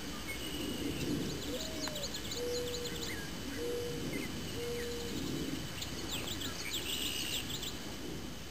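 Wild birds singing: many quick high chirps, and in the first half a run of four low hooting notes about a second apart.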